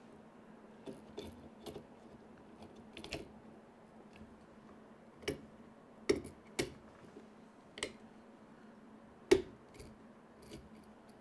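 Plastic parts of a 3D printer's hot-end cover and fan shroud clicking and tapping as they are handled and fitted back onto the print head: about ten scattered sharp clicks, the loudest about nine seconds in.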